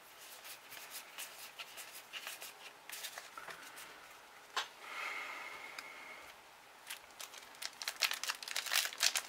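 Trading cards being handled and slid against each other, with soft, scattered clicks and rustles. From about seven seconds in, a foil booster pack crinkles quickly as it is picked up and worked in the hands.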